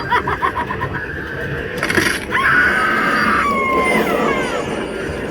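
Halloween animatronic prop playing its sound effects: a sharp hit about two seconds in, then a long shrill, scream-like tone that glides downward near its end.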